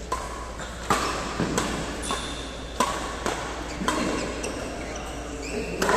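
Badminton rackets striking a shuttlecock in a rally, sharp hits coming roughly once a second with a hall echo.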